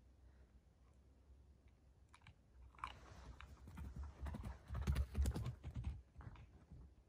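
Central Asian Shepherd puppy chewing a bone: a run of crunching and gnawing starts about three seconds in, grows loudest near the five-second mark and stops about six seconds in.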